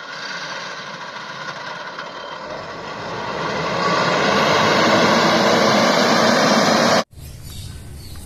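Large farm tractor's diesel engine running under load as it pulls a tillage implement through a field. The sound grows louder over a second or two as the tractor comes closer, then cuts off suddenly near the end.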